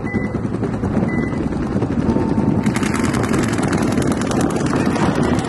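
Paintball markers firing in rapid, overlapping strings of shots. It thickens into a dense, fast crackle about two and a half seconds in.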